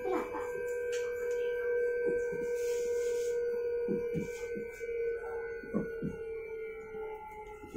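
Electric train's traction motor whine heard inside the passenger carriage: a steady hum of several held tones, its pitch sinking slightly in the second half. A few soft low knocks come in pairs.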